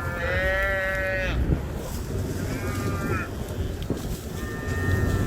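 Cattle bawling in the snow: three calls, a long one that drops in pitch at its end, a shorter falling one, and a third that runs on past the end, over a low steady rumble.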